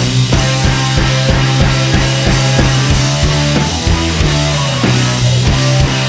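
Rock music with a drum kit and a steady, driving beat.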